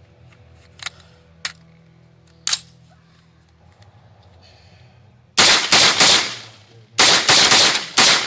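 A few sharp clicks as a Windham carbon fiber AR-15 is handled and readied, then, about five seconds in, a rapid string of semi-automatic rifle shots, about three a second, with a brief pause midway.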